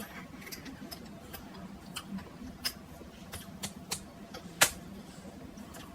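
Faint, irregular mouth clicks and smacks of someone chewing a chewy fruit-and-toffee sweet, with one sharper click about four and a half seconds in.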